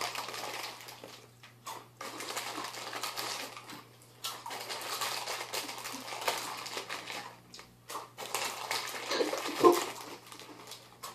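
Close-up chewing and crunching of crunchy rolled tortilla chips (Mini Takis), a run of irregular short crackles and wet mouth sounds, over a faint steady low hum.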